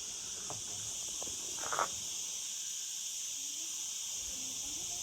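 Insects chirring in a steady, continuous high drone, with one brief scuff about two seconds in.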